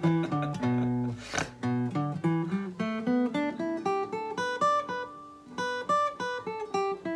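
Acoustic guitar picked note by note, a melody with arpeggiated chord tones at about four or five notes a second, with a brief dip a little past the middle.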